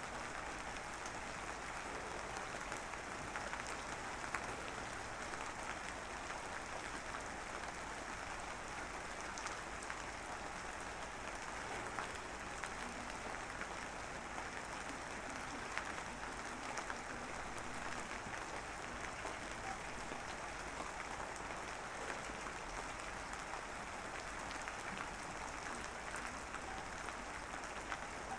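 Light rain drizzling steadily: an even hiss with scattered faint drop ticks.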